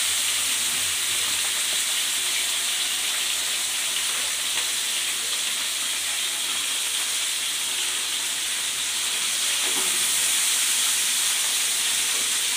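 Pabda fish and drumstick pieces shallow-frying in mustard oil in a pan, a steady hiss of sizzling oil.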